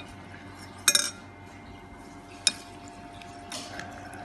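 Bowl and dishes clinking while raw pork is mixed with its marinade: a quick cluster of clinks about a second in, a single clink at about two and a half seconds, and a brief scrape near three and a half seconds.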